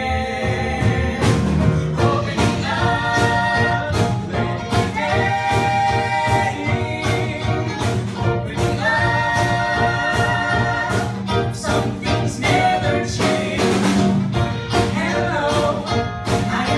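Musical-theater singers performing an up-tempo show song, holding long sung notes over instrumental accompaniment with a steady beat.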